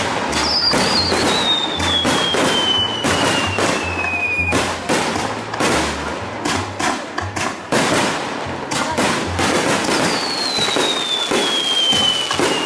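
Fireworks display: aerial shells bursting in a rapid, irregular run of bangs and crackles. A high whistle glides down in pitch over about four seconds, twice.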